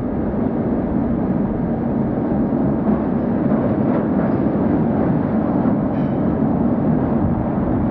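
Diesel locomotive approaching at low speed, its engine running steadily and slowly growing louder as it nears.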